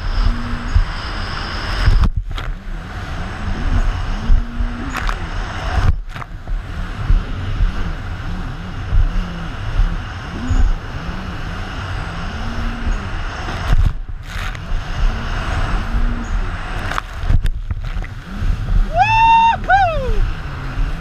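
Personal watercraft engine running hard, its pitch rising and falling as the craft rides over waves, under heavy wind and spray noise on the helmet-mounted camera. Near the end a brief high whine rises and falls twice.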